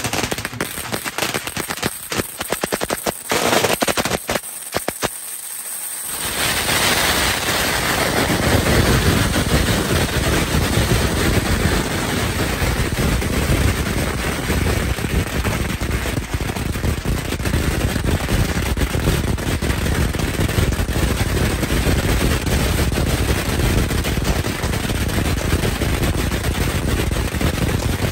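Strings of firecrackers going off: separate sharp bangs at first, then from about six seconds in a dense, continuous rapid crackle of explosions.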